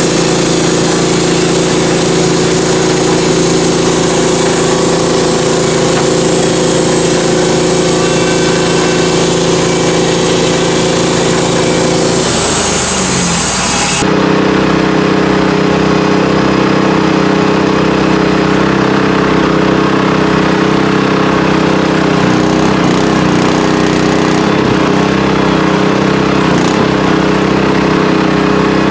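Sawmill engine running steadily under a loud, even drone. About halfway through, the hissing top end drops away suddenly and the engine note shifts a little.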